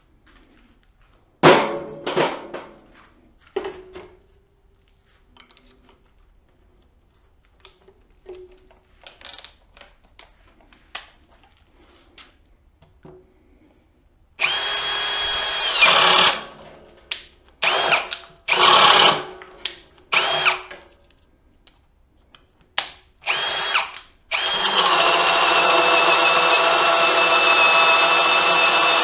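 Ridgid cordless drill boring a spade bit into a wooden 4x4. A few sharp knocks and clicks come first, then the drill runs in about half a dozen short bursts with a high motor whine, and from about three quarters of the way through it runs continuously, cutting through the wood.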